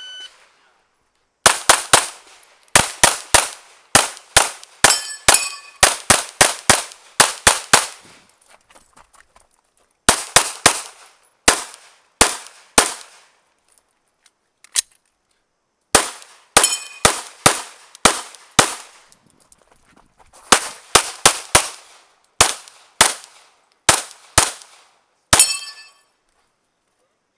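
Glock 17 9mm pistol fired rapidly through a stage, many shots mostly in quick pairs. The strings are separated by pauses of one to two seconds.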